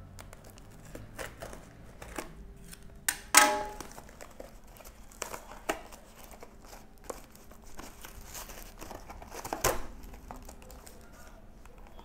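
Paper parcel wrapping being slit, torn open and crumpled by hand: rustling and crinkling with scattered clicks and a few sharp rips, the loudest a little over three seconds in.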